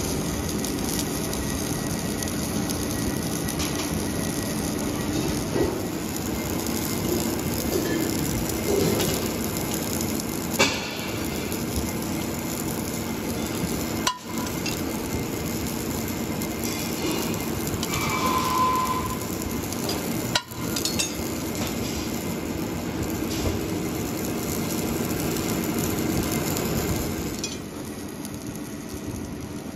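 Arc welding of the circumferential seam on a steel gas cylinder as it turns in a fixture: a steady crackling sizzle from the arc, with a few sharp clicks and clinks.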